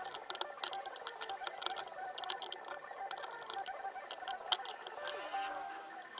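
Metal spoon clinking and scraping against ceramic bowls while eating rice and broth: a run of light, irregular clicks.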